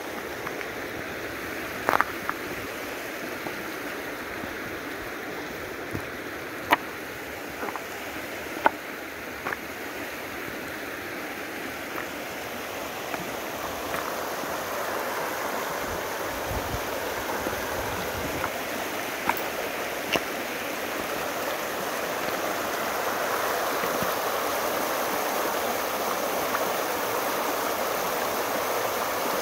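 River water rushing over a shallow stony riffle, a steady wash that grows louder toward the end. A few sharp clicks of stones knocking underfoot on the gravel bar come and go in the first two-thirds.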